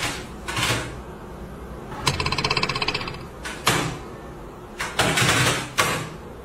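Computer keyboard struck by a Shiba Inu's paws: a fast rattling run of key strikes lasting about a second, about two seconds in, with a few separate knocks of paws landing on the keys before and after.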